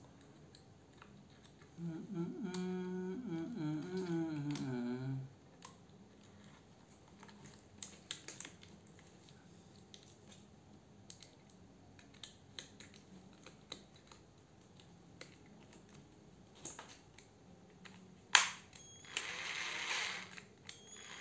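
Clicks and taps of a National EZT603 12V cordless screwdriver being handled and hooked to a test battery, with a wavering hum for about three seconds two seconds in. Near the end, a sharp click and then the screwdriver's motor running briefly, quietly.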